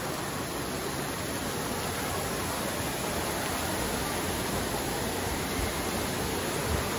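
Steady rush of running and splashing water in an indoor waterpark hall, an even noise that keeps on without a break.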